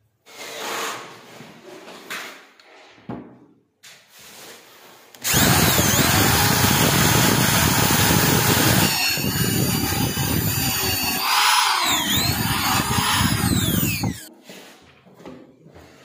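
Electric drill boring a hole through a wooden drawer front for a drawer lock's cylinder. It runs loud and steady for about nine seconds from about five seconds in, its motor pitch dipping and rising again near the twelve-second mark before it stops. A few quieter scrapes and knocks come before it.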